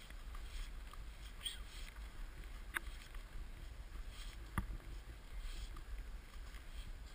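Low steady rumble of wind and movement on a body-worn action camera's microphone, with soft crunches of footsteps in snow and a few short sharp clicks, the loudest about midway.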